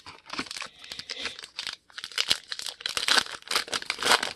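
A trading card pack's wrapper being torn open and crinkled by hand: a run of crackling tears and rustles with a short pause a little under halfway through.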